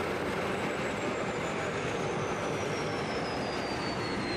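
F/A-18 fighter jet's engines running down the runway: a steady rush of jet noise with a thin, high turbine whine that slowly falls in pitch.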